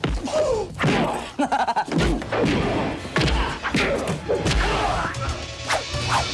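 Movie fight-scene sound effects: a rapid string of punch and kick impacts, thuds and slams, with short grunts and shouts between the blows.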